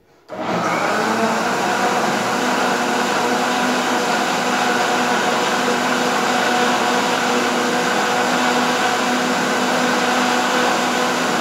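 Countertop blender switched on about a third of a second in and running steadily at one speed, its motor hum under the churn of fruit and yam milk being blended into a shake.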